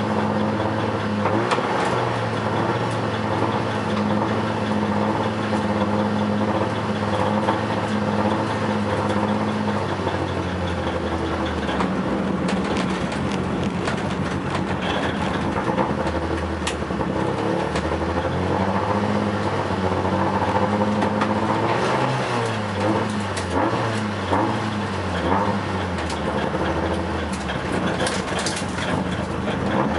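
Peugeot 106 Group A rally car's engine heard from inside its stripped cabin, running at moderate revs, its pitch stepping up and down again and again with throttle and gear changes.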